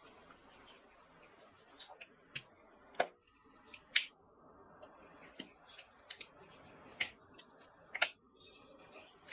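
Computer parts being handled during a PC build: a string of irregular sharp clicks and snaps, about a dozen, the loudest about four seconds in.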